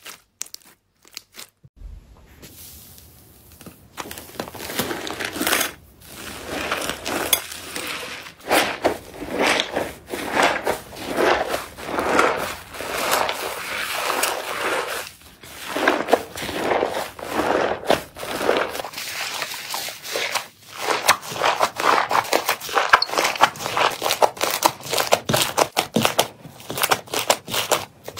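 Hands squeezing, stretching and folding thick slime: wet crackling and popping in repeated surges about once a second, full of fine clicks. In the first two seconds there are only quieter scattered clicks as clear slime is pressed.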